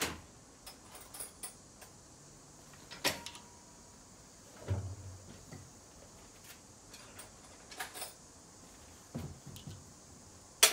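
A handful of separate clicks and knocks of tools being handled on a steel workbench, ending in a sharp metallic click as a hex key is fitted into the top of a diesel injector clamped in a vise.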